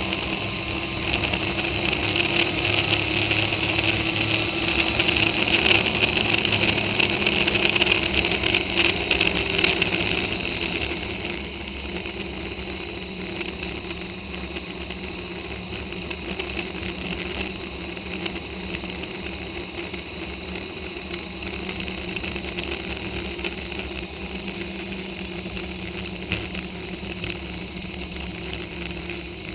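A Yamaha Fazer 600 motorcycle's engine running at a steady speed under loud wind rush. About ten seconds in, the engine and wind both drop to a lower, steady level as the bike eases off.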